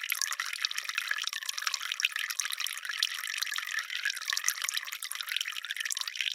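Water dripping and splashing in a dense, continuous patter of many small drops, high and thin with no low end.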